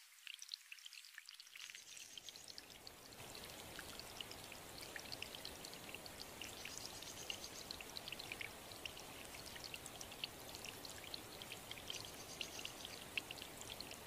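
Water trickling and splashing over rocks, then about two seconds in the steady, full rush of a waterfall comes in and holds, with bright splashes on top.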